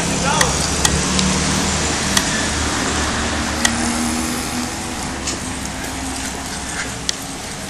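Bicycle riding along a city sidewalk: a steady rush of wind and rolling noise with street traffic behind it, broken by a few sharp clicks and knocks as the bike and camera jolt over the pavement.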